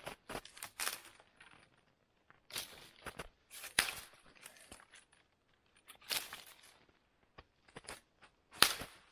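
Dry dead branches of a conifer snapping as they are broken off the trunk by hand: a series of sharp cracks with rustling twigs between them, the loudest snap near the end.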